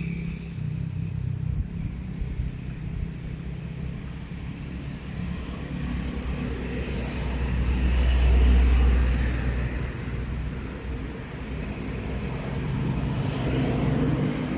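Low rumble of a passing motor vehicle, swelling to its loudest about eight seconds in and then fading.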